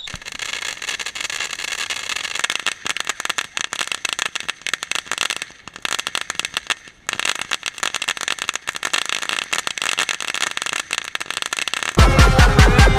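Crackling firework giving off a dense, rapid spray of small pops, dying down briefly about halfway, then crackling again. Loud music comes in near the end.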